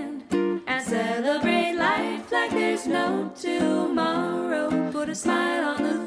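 Background music: an acoustic song with a plucked-string accompaniment and a voice singing a gliding melody.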